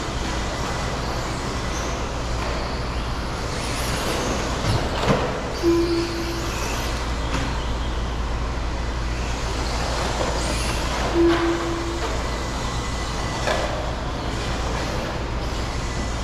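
Electric RC stadium trucks running on an indoor dirt track under a steady rush of background noise. There are a few sharp knocks and two short beeps about five seconds apart.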